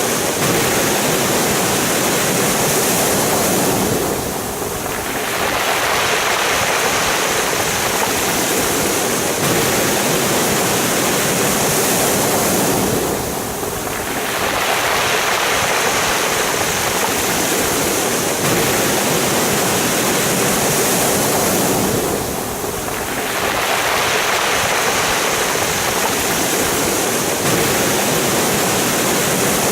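Sea waves breaking and washing over a pebble beach in a continuous rush that eases briefly about every nine seconds as each wave draws back.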